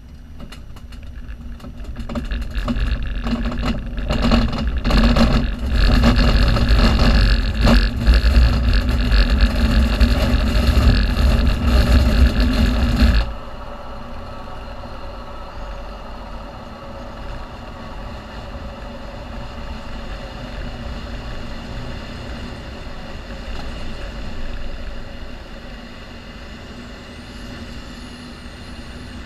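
Glider ground roll on a grass strip under aerotow: the wheel rumbling and rattling loudly over the turf, with the tow plane's engine running ahead. About thirteen seconds in, the rattle cuts off suddenly as the glider lifts off, leaving steady rushing air and the tow plane's engine.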